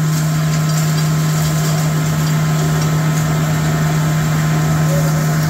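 Impact pulverizer grinding plant running steadily under load, a loud unbroken machinery drone with a strong constant low hum.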